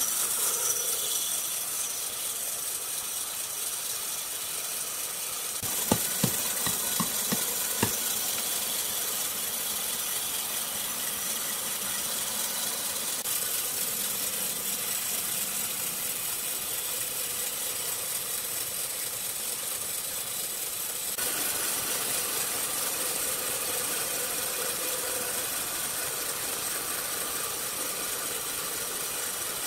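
Horizontal band sawmill running, its band blade cutting lengthwise through a large log: a steady mechanical hiss. A few sharp knocks come about six to eight seconds in.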